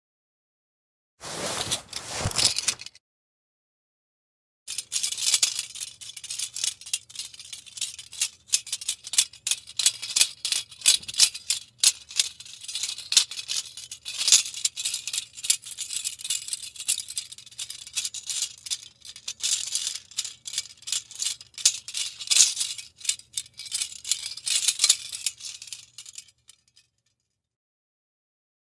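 Metal handcuffs handled as a sound effect: a short burst of rapid clicking about a second in, then a long stretch of dense metallic clicking and chain rattling that stops a couple of seconds before the end.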